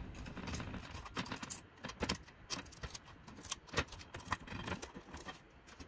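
Metal tongs clicking and scraping against a wire mesh air fryer basket as crispy chicken-skin cracklings are picked up: irregular light clinks a few times a second, some louder than others.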